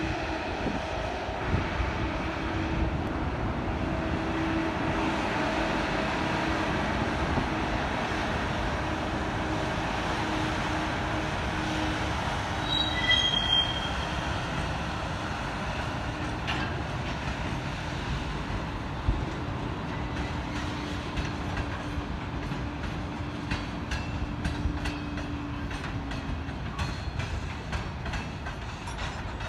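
Freight cars of a work train rolling past, steel wheels on rail with a held squeal for most of the time. In the second half, sharp clicks pile up as the wheels cross rail joints.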